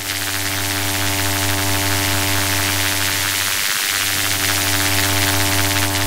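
Electric buzzing sound effect: a steady low hum with evenly spaced overtones under a crackling hiss, like high-voltage arcing. The hum drops out for a moment about four seconds in.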